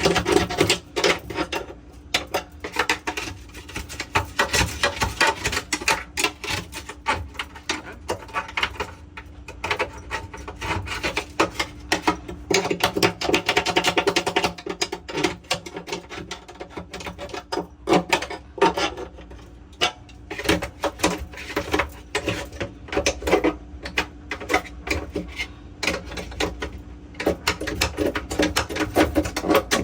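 Rubbing, wiping and knocking of hands cleaning and handling the inside of a refrigerator, with many short clicks and clatters.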